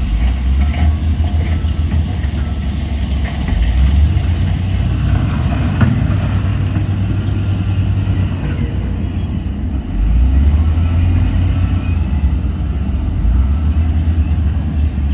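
Heavy earthmoving machine's diesel engine running hard with a deep, fast-pulsing rumble, swelling louder about four seconds in and again near ten seconds, with a single knock about six seconds in.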